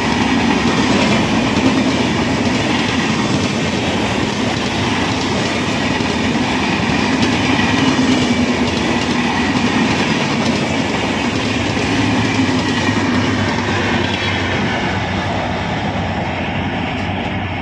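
Passenger train of red-and-grey LHB coaches passing at speed close by: steady noise of wheels running on the rails and coaches going past, easing off over the last few seconds as the end of the train goes by.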